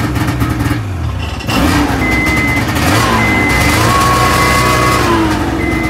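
Ski-Doo Summit 550F two-stroke twin engine running after being switched into reverse, getting louder about a second and a half in. The sled's reverse warning beeper sounds in short beeps over it, the sign that reverse is now engaging after the capacitor in the RER harness was replaced.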